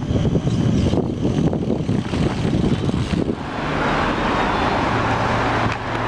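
Wind rumbling and buffeting on the microphone of a moving bicycle, with a car passing on the street from about halfway through: tyre hiss and a low engine hum that fade near the end.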